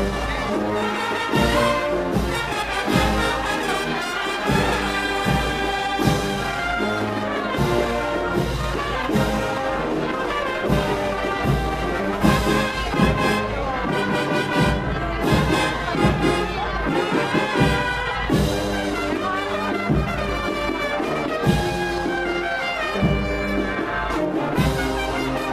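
Spanish processional band (agrupación musical) playing a march: brass and cornets holding sustained melody lines over regular drum beats.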